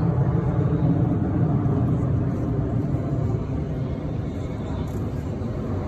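Jet noise from a formation of US Air Force Thunderbirds F-16 Fighting Falcons flying past: a steady low rumble that fades slowly as the jets pull away.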